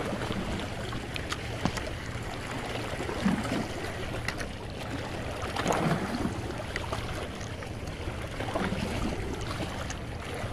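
Steady wind and water noise around a small fishing boat with a constant low hum, and scattered light clicks as a spinning reel is handled close to the microphone.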